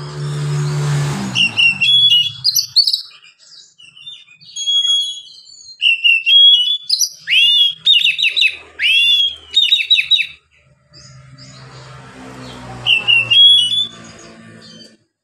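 Oriental magpie-robin singing a relaxed, varied song of short whistled phrases with pauses between them, and a run of fast sweeping notes in the middle.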